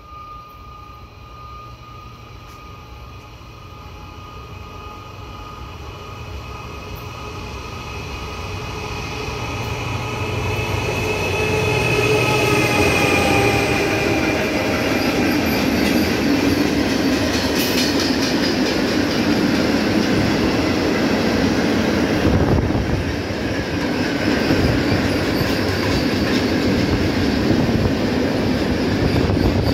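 A locomotive-hauled freight train of tank wagons approaches and passes close by, growing steadily louder over about twelve seconds. The locomotive's tones drop in pitch as it goes past. After that comes a steady loud rumble and clatter of wagon wheels on the rails, with a little wheel squeal.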